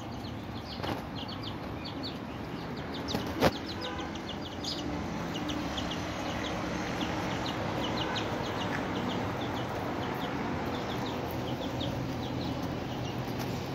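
Birds chirping in quick runs of short, high notes, with one sharp knock about three and a half seconds in.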